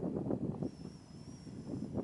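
Wind buffeting the camera microphone in uneven gusts, easing a little after the first half-second. A faint, thin high whistle is held for about a second in the middle.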